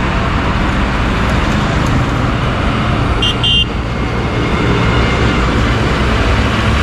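Highway traffic passing close by: trucks and cars with steady engine and tyre noise. A vehicle horn gives two short toots about three seconds in.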